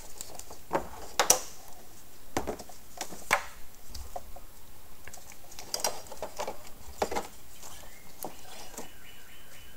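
Scattered clicks and light knocks of parts being handled by hand in a car's engine bay, the sharpest about a second in and three seconds in.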